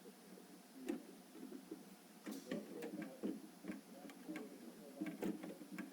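Scattered light clicks and knocks, irregular and faint, with a low rustle of handling between them, as parts of a work platform and ladder are handled and fitted together.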